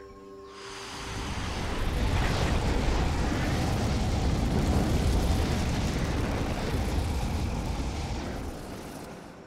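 Fire-breathing sound effect: a long blast of flame with a deep rumble that swells in over about a second, holds steady for several seconds, then fades away near the end.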